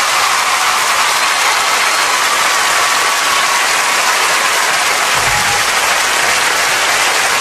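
Large concert audience cheering and applauding in a steady, dense wash of noise. A brief low note sounds beneath it about five seconds in.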